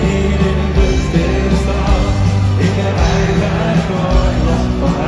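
Loud live pop-rock band music through a stadium sound system, a passage with steady bass and drums and no clear lead vocal.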